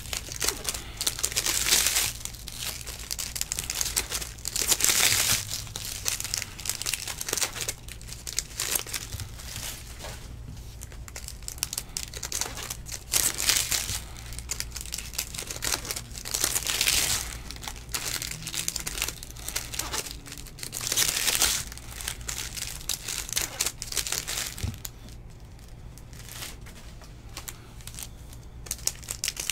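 Foil wrappers of Bowman baseball card hobby packs being crinkled and torn open by hand: loud bursts of crinkling every few seconds, with quieter rustling between them.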